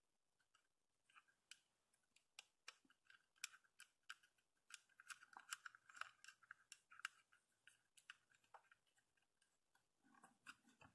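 Faint, scattered small clicks and scrapes of fingers threading a small nut onto a DB9 connector's screw in a plastic enclosure.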